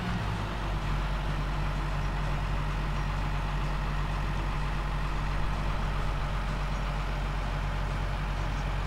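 New Holland TM190's six-cylinder turbo diesel engine running steadily at a constant speed. It is working its oil round through a restrictor to bring the transmission oil up to operating temperature before calibration.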